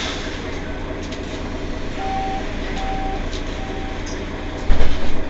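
Mercedes-Benz Citaro city bus running with a steady low rumble. About halfway through, a beeper sounds four short times, about one and a half a second, and a heavy low thump comes near the end.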